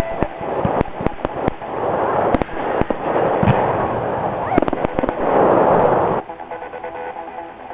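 Fireworks going off: a quick string of sharp bangs and crackling over a dense hissing rush. It cuts off abruptly about six seconds in, where music with guitar takes over.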